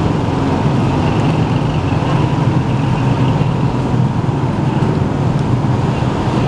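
Steady low rumble of motor traffic with an engine running nearby.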